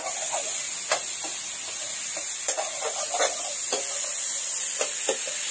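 Pork pieces frying in their own rendered fat in a wok, sizzling steadily, while a metal spatula stirs them and clinks and scrapes against the pan now and then.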